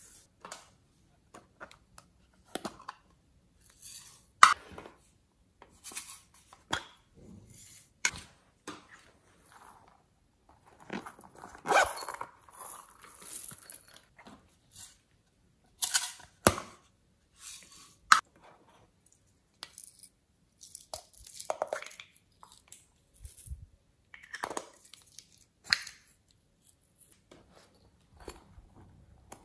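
Handling noises of plastic toy containers and squishy foam toys: scattered sharp clicks, taps and crackly rustles with short quiet gaps between them, a few louder snaps among them.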